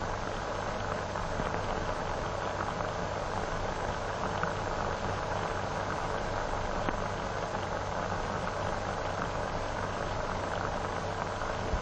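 Steady hiss and low hum of an old optical film soundtrack, with faint scattered crackles.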